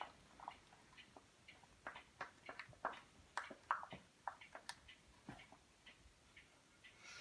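Faint, irregular small clicks and rustles from two Norfolk terriers mouthing and tugging at a toy between them in a game of tug of war.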